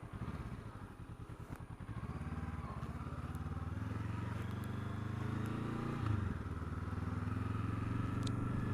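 Motorcycle engine heard from the bike, running low and pulsing slowly at first, then the revs and level rise as it picks up speed. The note dips briefly about six seconds in, as at a gear change, then it runs on steadily.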